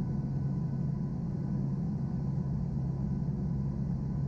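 Steady drone of a turboprop aircraft's engines and propellers heard inside the cabin: a low hum with faint steady whining tones above it.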